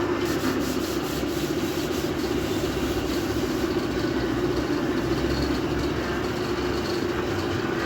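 Woodworking machinery running steadily, a continuous mechanical noise with a constant low hum.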